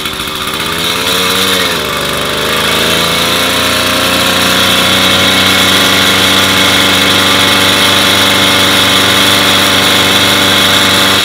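Small air-cooled single-cylinder motorized-bicycle kit engine running on the stand with its clutch engaged and a little throttle, just pedal-started and still on part choke. Its pitch dips about two seconds in, then it runs steadily and a bit louder.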